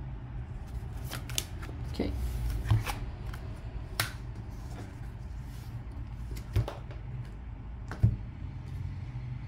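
Tarot and oracle cards being handled on a table: scattered taps and slaps as cards are drawn from a deck and laid down, the sharpest near the end, over a steady low hum.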